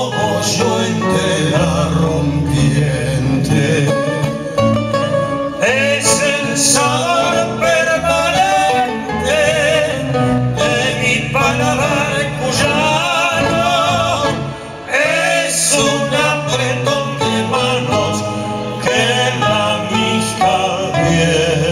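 Male voice singing a Cuyo tonada with strong vibrato in long phrases, accompanied by two acoustic guitars.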